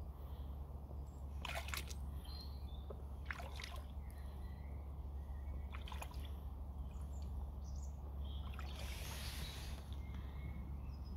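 Rubber wellington boots wading through shallow pond water, sloshing and splashing with each step, with a longer splash about nine seconds in. Birds sing in the background over a steady low rumble.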